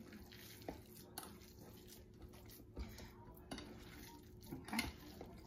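Hands kneading raw ground-beef meatball mixture in a glass bowl: faint squishing of the meat, with a few light knocks against the bowl, the loudest near the end.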